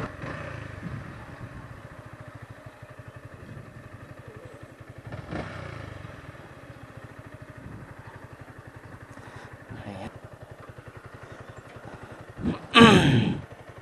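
Motorcycle engine running at low speed and then idling with an even pulsing beat as the bike slows and stops. A man's voice calls out loudly near the end.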